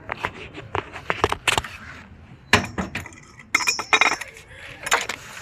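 Hand tools and metal parts clinking and knocking in a quick, irregular series of sharp clicks, one ringing briefly about three and a half seconds in, while the radiator hoses are worked loose.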